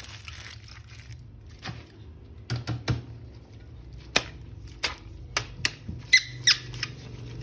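Handling of a toy and its plastic packaging: scattered sharp clicks and taps, with a short squeak of plastic rubbing about six seconds in.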